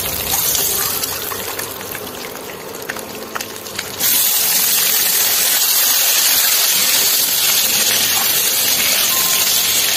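Hot oil sizzling steadily in a nonstick kadhai around whole boiled eggs, with a spatula scraping and stirring through it. About four seconds in, the sizzle jumps suddenly louder and fuller as chopped tomatoes go into the hot oil.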